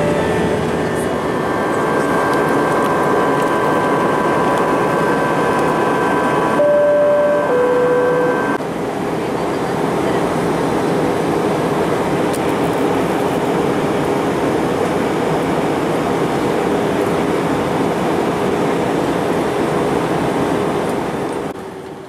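Steady rush of engine and airflow noise inside a passenger airliner's cabin in flight. About seven seconds in, a two-note falling chime sounds, like the cabin signal chime.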